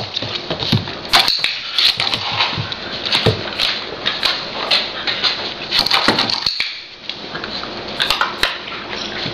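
A standard poodle puppy pawing and scratching at a light switch: irregular scrapes and knocks with many sharp clicks.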